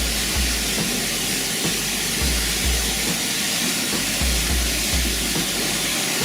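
Steady rush of a waterfall's falling water, with a music bass line pulsing underneath.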